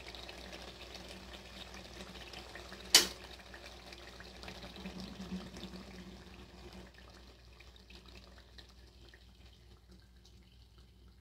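Chicken achari handi curry sizzling and bubbling in oil in the pot, a crackly hiss with small pops that grows fainter after about seven seconds. A single sharp click about three seconds in is the loudest sound.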